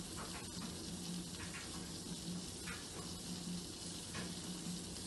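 Beef-and-leek pancakes frying in oil in a pan: a steady sizzle with a few faint crackles, over a low steady hum.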